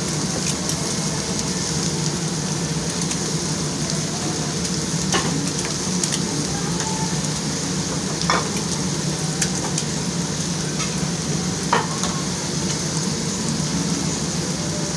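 A steady hissing noise over a low hum, with three sharp clicks spread through it.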